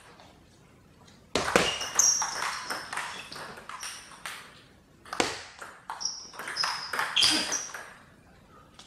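Table tennis play: the ball clicking off bats and table in quick succession, with short high squeaks of shoes on the sports-hall floor. Two stretches of play, the first starting about a second and a half in, the second about five seconds in.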